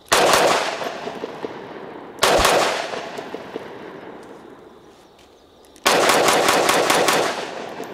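Three loud 9mm pistol shots from a Glock 19 fired with its muzzle pressed against a rubber target, each followed by a long rolling echo; the second comes about two seconds after the first and the third some three and a half seconds later. The stand-off device on the muzzle keeps the slide in battery, so the pistol still fires in contact.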